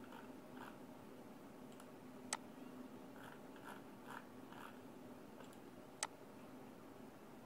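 Two sharp computer-mouse clicks about four seconds apart, over a faint room hum.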